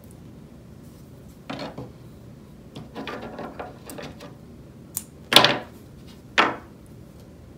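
Wooden embroidery hoop stretched with punch-needle fabric being handled and turned over on a wooden table: scattered rustles and taps, a sharp click a little past the middle, then the loudest knock and one more shortly after.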